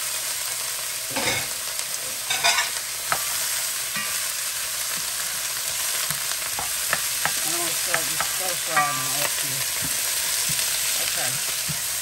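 Broccoli, Brussels sprouts and onions sizzling and steaming in a hot nonstick skillet: a steady frying hiss, with a few light knocks in the first few seconds.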